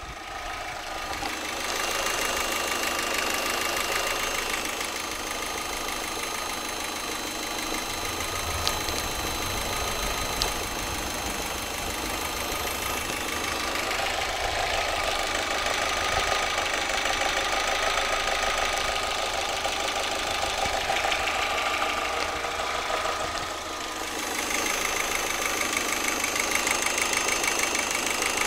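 Vauxhall Astra G 1.6 16v four-cylinder petrol engine running steadily at idle with a faint, even knock or tap that only shows when the engine is hot; its cause is unknown to the owner. Two sharp clicks stand out about nine and ten seconds in.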